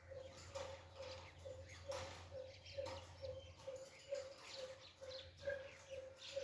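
Alexandrine parakeet making a series of short, quick chattering calls. A faint tone pulses steadily about twice a second underneath.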